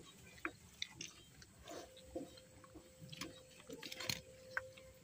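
Close-up eating by hand: irregular wet clicks and smacks of chewing and lips, and fingers squishing rice and curry. A faint steady hum joins about two seconds in.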